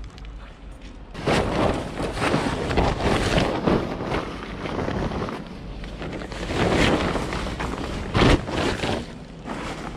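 Plastic tarp rustling and crinkling in irregular surges as it is handled and pulled off a trailer load of scrap bikes, with a sharper knock about eight seconds in.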